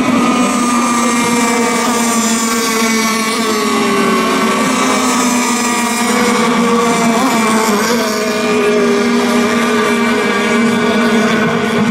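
Several radio-controlled racing boats running at speed, their motors making a loud, steady high-pitched buzz, with the pitch wavering slightly as they go through the turns.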